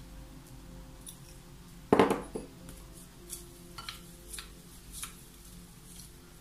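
A small white ceramic pitcher set down on a table with one loud knock about two seconds in, followed by a few light clinks and taps as fingers handle a small glass bowl of dried rose petals. Soft background music runs underneath.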